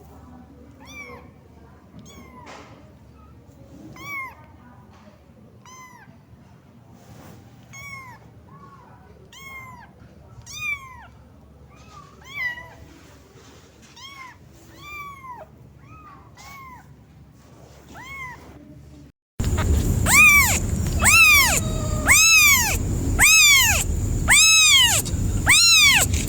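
Kitten meowing over and over, short high calls that rise and fall, calling for its mother. About nineteen seconds in the sound cuts to much louder, quicker meows, about two a second.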